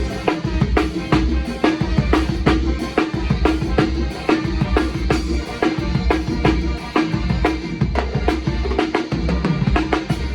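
Sonor drum kit with Orion cymbals played continuously in a busy groove: bass drum and snare hits several times a second, with tom and cymbal strokes.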